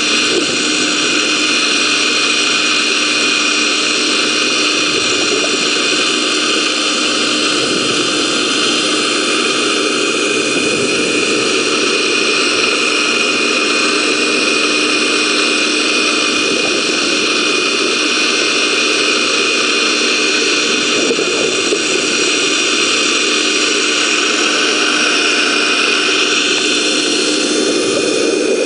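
Vortex Tornado 4-inch venturi dredge working, heard underwater at its suction hose: a constant rushing hiss with a steady hum as the hose draws in water and black iron sand (magnetite).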